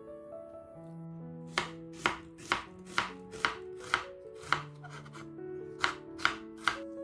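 Chef's knife slicing through half an onion and knocking on a wooden cutting board: sharp chops about two a second, a run of seven, then three more after a short pause.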